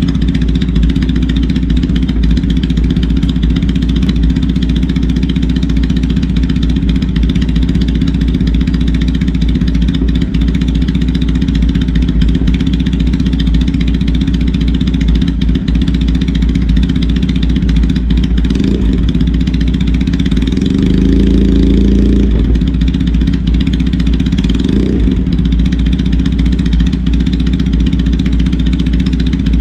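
Triumph Bonneville T100's air-cooled parallel-twin engine idling steadily through its exhaust. About two-thirds in the throttle is blipped once, then held open for a rev of about two seconds, then blipped once more.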